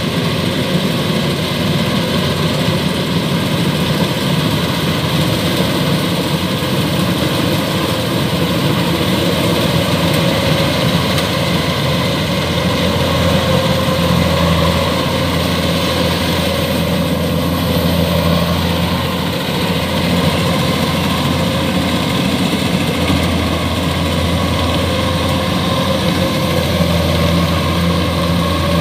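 Kubota DC-105X combine harvester's diesel engine running steadily under load while the machine cuts and threshes rice.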